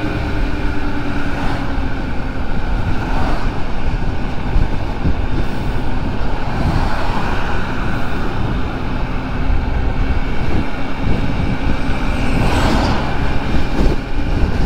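Honda Ruckus scooter's small single-cylinder engine running at riding speed, with wind buffeting the microphone. A vehicle rushes past about twelve to thirteen seconds in.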